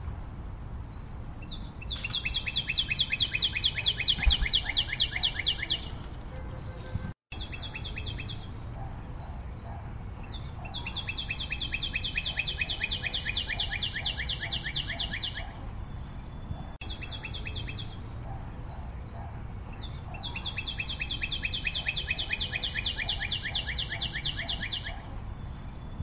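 A bird's rapid, high trill, repeated three times with pauses of about five seconds between, each trill lasting about four to five seconds. The sound cuts out completely for a moment about seven seconds in.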